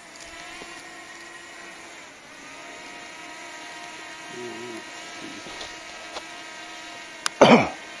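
Quadcopter camera drone flying overhead, its propellers giving a steady whine of several tones. A short, loud voice sound, like a cough, breaks in near the end.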